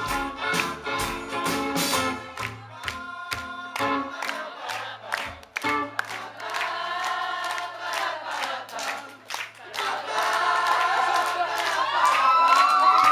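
Live band with rhythmic strummed guitar and voices, then from about six seconds in several voices singing long held harmonies over a steady low note, swelling louder near the end.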